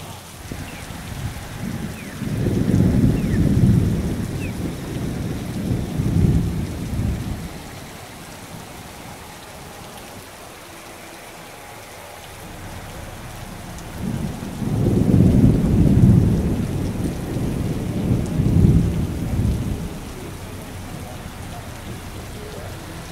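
Heavy rain falling steadily, with two spells of loud low rumbling about 2 and 14 seconds in, each lasting about six seconds.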